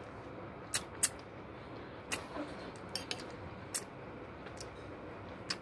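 A metal spoon clinking and tapping against a bowl several times, in short sharp irregular clicks.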